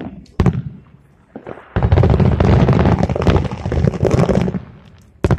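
Aerial firework shells bursting. Two sharp bangs open it, then comes about three seconds of rapid, overlapping booms and crackling, and one more sharp bang near the end.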